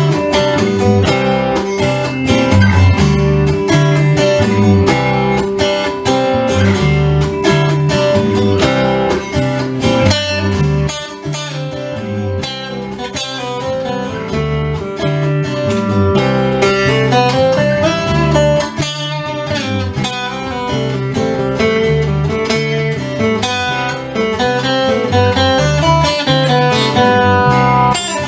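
Instrumental music: acoustic guitar strumming and picking a steady rhythm, with a bass line.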